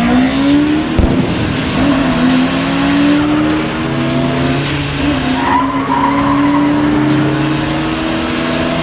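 A sports car engine held at high revs under hard driving, its pitch climbing slowly, with tyres squealing through the corners. A sharp click comes about a second in.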